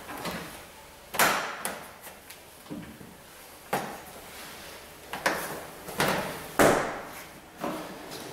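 A series of sharp knocks and clanks, about seven spread across a few seconds, each with a short ring after it, from work around the truck's engine bay.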